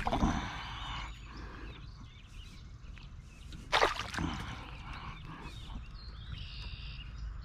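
Hooked pickerel thrashing at the water's surface as it is landed: a splash at the start and a louder one a little under four seconds in.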